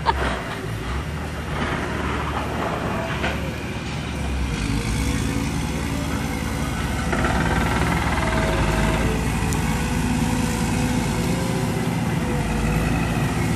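Diesel engine of a Cat wheeled excavator running, a steady low rumble that grows louder about halfway through.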